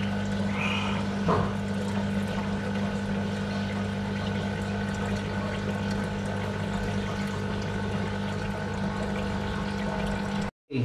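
Aquarium running: a steady hum from the tank's air pump, with water bubbling and trickling from the air stone.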